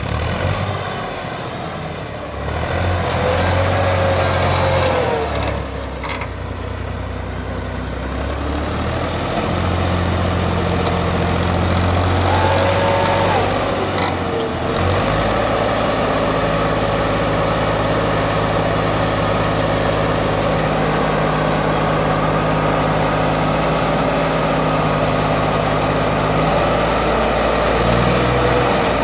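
Massey Ferguson 260 tractor's diesel engine running hard under heavy load, straining to pull a loaded soil trolley stuck in soft ground. Its revs step up and down several times.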